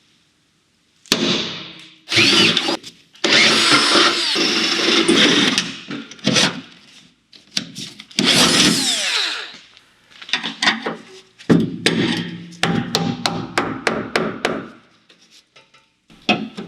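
Handheld power tool running in several bursts of one to three seconds, its pitch sweeping as it speeds up and slows. Sharp clicks and taps come between the bursts and carry on near the end.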